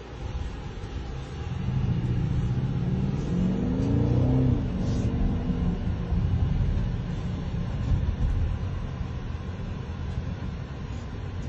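BMW X6 M50i's twin-turbo V8 exhaust revving: the engine climbs in pitch from about two seconds in to a peak around four and a half seconds, then falls back to a steady lower run.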